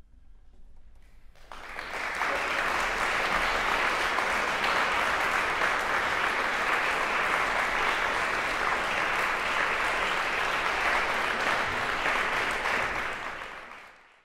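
Audience applauding. The clapping starts about a second and a half in, holds steady, and fades out near the end.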